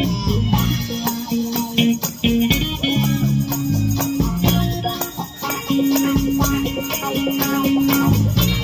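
A live band playing, with a rattling hand-percussion rhythm over plucked string and bass notes.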